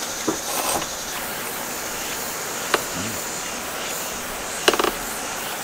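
Steady high outdoor hiss with a few light clicks of tableware: a single click a little before three seconds in and a quick cluster of clicks near the end.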